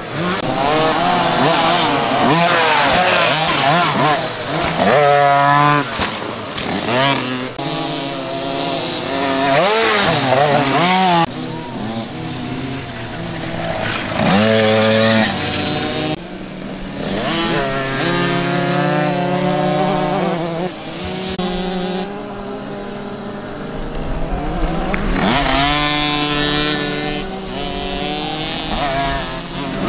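Small two-stroke kids' motocross bikes racing on a dirt track, their high-revving engines rising in pitch as they accelerate and dropping back as they shift or brake, several bikes heard together at times.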